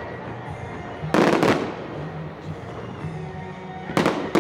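Fireworks salute shells bursting in the air: a quick cluster of several sharp bangs about a second in, then a lull, then another rapid cluster of bangs near the end.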